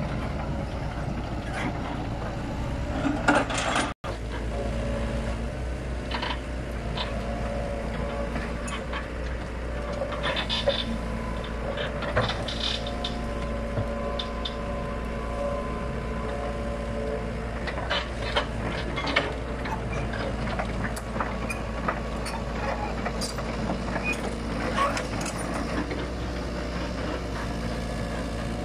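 Hitachi tracked excavator's diesel engine running steadily under load, with scattered knocks and clanks as its steel tracks and bucket work over felled logs. The sound drops out for an instant about four seconds in.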